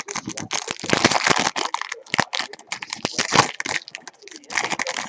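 Foil trading-card pack wrapper crinkling and tearing as the pack is ripped open, a dense run of crackles that stops suddenly near the end.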